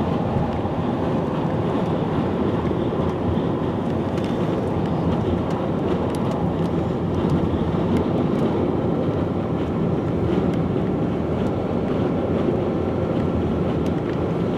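Steady road and wind noise of a car driving at highway speed, heard from inside the cabin.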